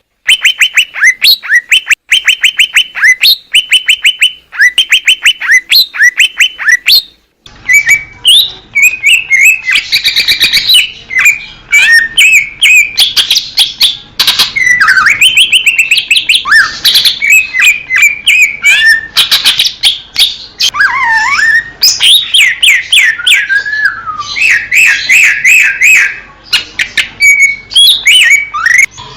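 Green leafbird (cucak ijo) singing. For the first seven seconds or so it gives short, fast trilled bursts, one after another. After a brief break the song turns varied and continuous, with whistles, sweeping notes and rapid chatter over a faint hiss.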